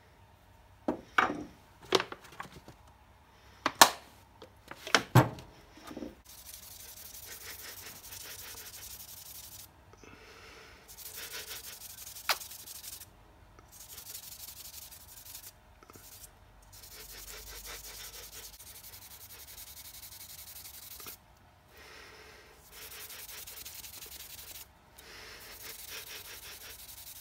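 Hand rubbing oil into a hardwood screwdriver handle: long even stretches of rubbing that stop and start every few seconds. Before the rubbing begins, in the first five seconds, there are a few sharp knocks and clicks.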